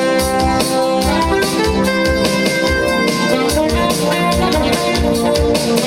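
Live pop band playing an instrumental passage with no singing: held chords that change about once a second over a steady drum beat.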